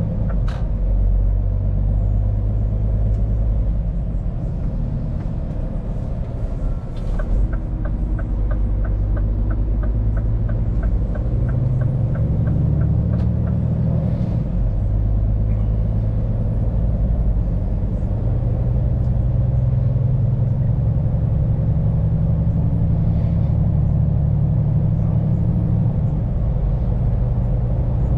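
Scania P410 truck's diesel engine running under way, heard from inside the cab, its note climbing and then dropping back a few times. For several seconds in the middle, a light regular clicking of about three clicks a second.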